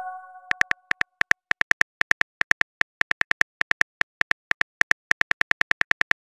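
Phone keyboard click sounds typing out a message: a fast, uneven run of short clicks, several a second, with brief pauses. The tail of a chime fades out in the first half second.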